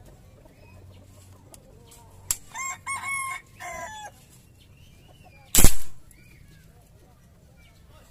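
A rooster crows about two and a half seconds in. About a second and a half after the crow ends, a Philippine footpump-charged air rifle fires once with a single sharp, loud report, the loudest sound here.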